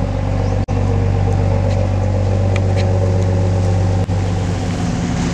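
Fishing trawler's diesel engine running steadily, a deep even hum, dropping out briefly twice.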